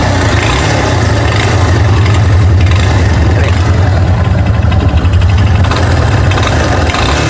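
2023 Yamaha Lander 250's single-cylinder four-stroke engine running steadily just after being started, with a mechanical noise that the mechanic places in the cylinder and judges to be minor.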